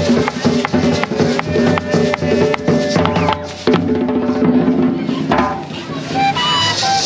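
Live Colombian folk drum group playing in the open: hand drums beaten in a busy rhythm with a shaker rattling along. About six seconds in, a flute comes in with clear held notes.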